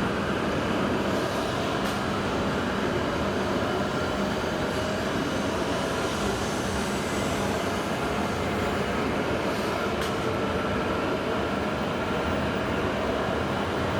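E7 series Shinkansen train at the platform: a steady running noise with a few faint, even whining tones above it.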